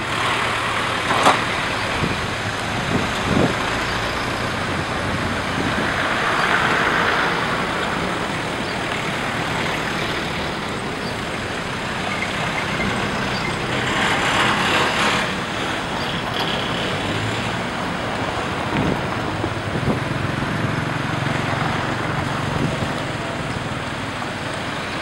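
Heavy diesel engines running steadily with road traffic going by. There are a couple of sharp knocks in the first few seconds.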